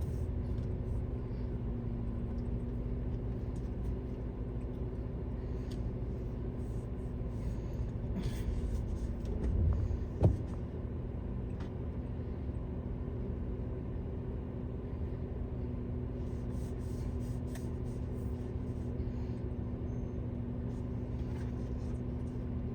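Steady low rumble and hum of a car driving, heard from inside the cabin, with a brief thump about ten seconds in.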